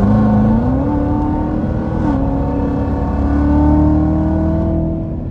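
A 2019 Corvette Z06's supercharged 6.2-litre V8 accelerating hard, heard from inside the cabin. The engine note climbs, steps down at an upshift about two seconds in, pulls up again, and falls away near the end as the throttle is lifted.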